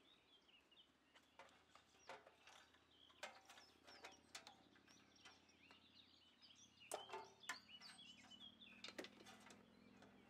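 Near silence with faint chirping birds and a few light knocks and clicks, the loudest about three and seven seconds in, as a metal corn sheller is handled and set in place.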